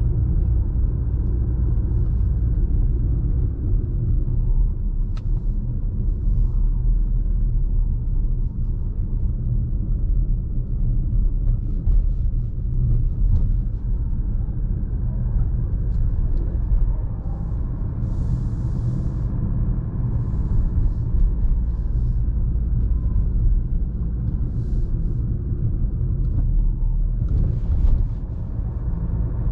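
Fiat Toro Volcano pickup's 2.0 diesel engine and road noise while driving, a steady low rumble.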